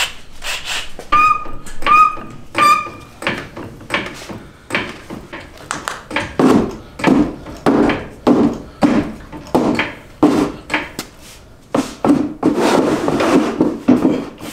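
Repeated knocks, clunks and rubbing of tools and parts as work goes on under a car, coming about every half second through the middle stretch. Three short beeps sound about a second in.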